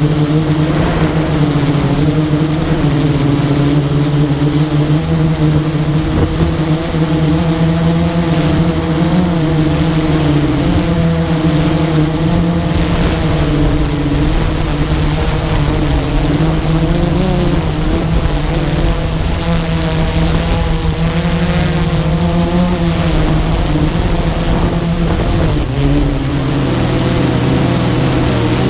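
Blade 350 QX2 quadcopter's four electric motors and propellers humming steadily, heard from on board, the pitch wavering a little as it manoeuvres.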